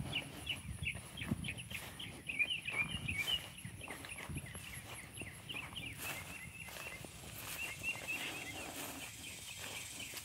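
Footsteps walking through grass, with many small birds chirping throughout and a faint, steady, high insect trill.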